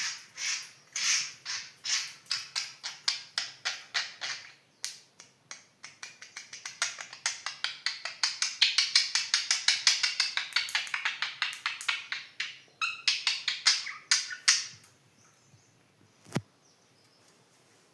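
Pet budgies chirping in quick repeated notes that build into a dense warbling chatter in the middle and stop about fifteen seconds in. A single sharp click follows near the end.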